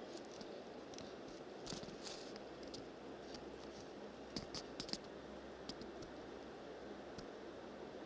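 Faint scattered clicks and rustles over quiet room tone, with a small cluster of sharper ticks about four and a half to five seconds in.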